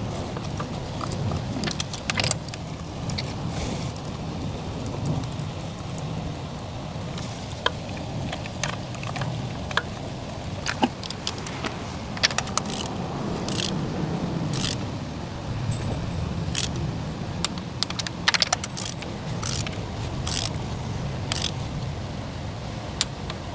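Metal hand tools clicking and clinking as spark plugs are tightened down with a socket extension and torque wrench: scattered sharp clicks, sometimes several close together, over a steady low background rumble.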